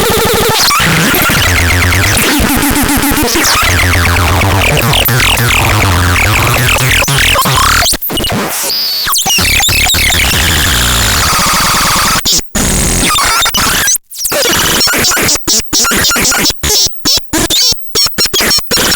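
Harsh electronic noise music: a dense wall of distorted noise with sweeping squeals over a pulsing low bass. In the last several seconds it stutters, cutting out and back in abruptly many times.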